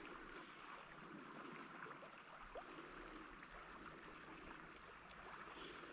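Near silence: the faint, steady sound of river water flowing.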